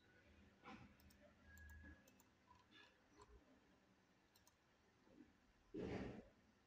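Near silence with a few faint computer mouse clicks. A short burst of noise, the loudest thing heard, comes about six seconds in.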